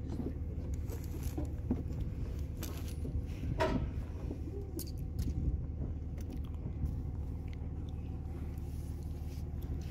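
Steady low hum of an idling vehicle engine, with scattered clicks and rustles from a ratchet strap being handled and one louder rattle about three and a half seconds in.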